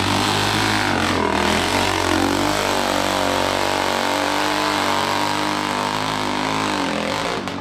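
Dirt bike engine revving hard as it climbs a steep hill, its pitch rising and falling with the throttle, then falling away near the end.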